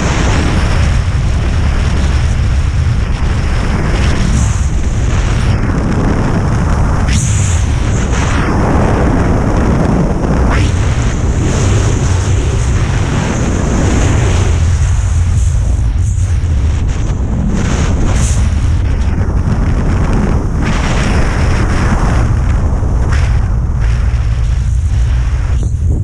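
Loud freefall wind rushing and buffeting over the microphone of a skydiver's camera, with a deep rumble and gusty swells during terminal-velocity freefall.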